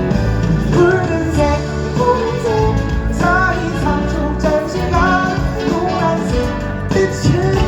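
Live pop-rock song played through a concert PA: a vocal melody sung over a full band with strong bass and steady accompaniment.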